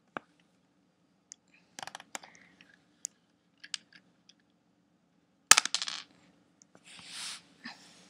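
Plastic Lego pieces clicking and clattering as a Lego Technic toy gun is handled and loaded. There are scattered small clicks, the loudest clatter of clicks about five and a half seconds in, and a short rustle near the end.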